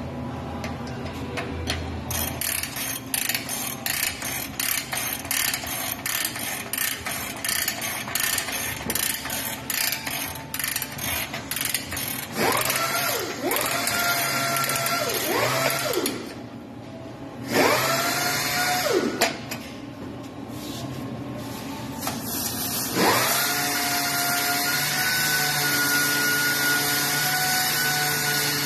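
Ratchet clicking in quick, even strokes as the spring of a Stroud parachute launcher is wound, the ratchet keeping the spring from unwinding. In the second half, a power tool's motor spins up with a rising whine and runs steadily several times.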